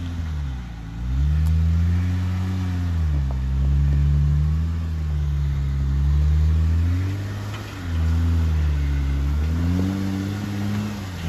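Off-road 4WD engine working under load, its revs rising and falling several times as the throttle is worked.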